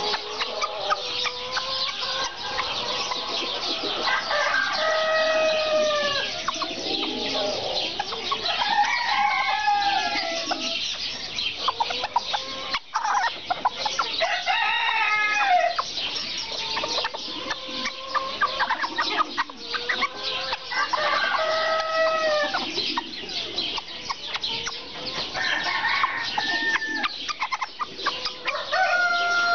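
Serama bantam roosters crowing every few seconds, each crow an arching call of a second or two, over steady clucking and chirping from the flock.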